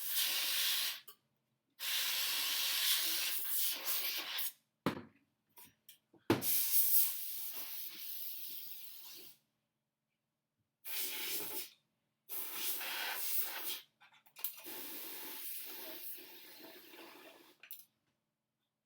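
Can of compressed air sprayed in about six bursts of hissing, blowing accumulated dust out of a computer fan; one long burst fades away gradually. A few short knocks come between the bursts near the middle.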